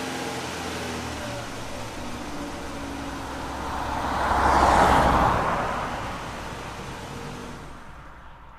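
Car engine running steadily, then a car passing by: the sound swells to its loudest about five seconds in and fades away.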